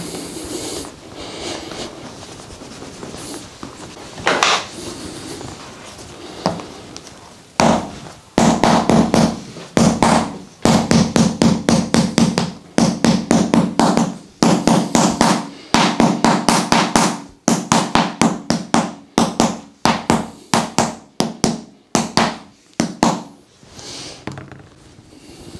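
A hand mallet striking a block held against a person's back in a long run of quick, sharp knocks, several a second, starting about eight seconds in and stopping a couple of seconds before the end. Before it, softer scuffing of a massage ball rolled over the skin.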